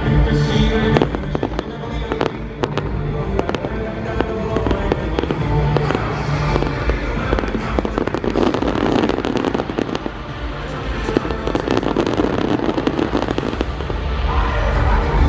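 Fireworks display: a steady stream of sharp bangs and crackles from fireworks bursting, over loud show music.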